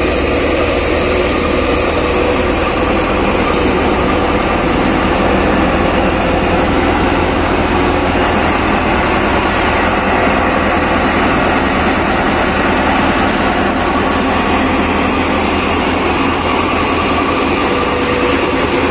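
ShaktiFarm nine-fan paddy thresher running steadily under load, driven through the PTO by a Sonalika DI 42 RX tractor, whose 42 hp engine runs beneath the drone of the threshing drum and fans.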